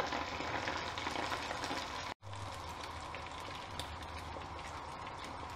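Neyyappam batter deep-frying in hot coconut oil: a steady bubbling sizzle. About two seconds in it cuts out for an instant, then goes on a little quieter.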